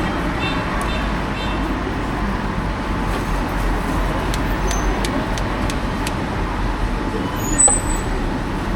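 Steady street background noise with road traffic, a constant low rumble and a few light clicks.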